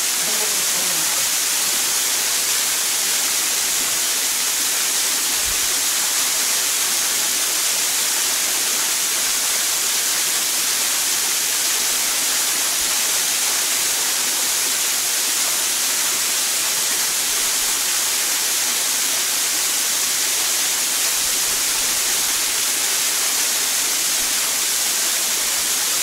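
Small waterfall with two streams falling down a rock face into a shallow pool, a steady hiss of splashing water.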